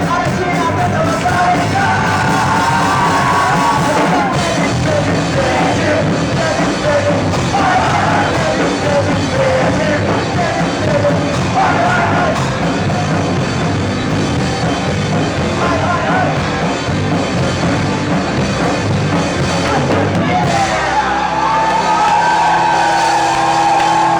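Live rock band playing a punk-rock song with a shouted, sung vocal, ending on a long held sung note over a sustained chord near the end.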